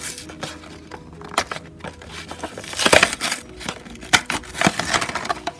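Plastic blister packaging crinkling and its cardboard backing tearing as it is pulled open by hand, with sharp crackles and the loudest rip about three seconds in.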